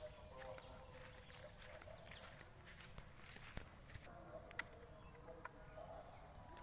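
Faint plantation ambience: a run of short, quick, falling chirps from birds over a steady high-pitched insect whine, with two sharp clicks near the middle.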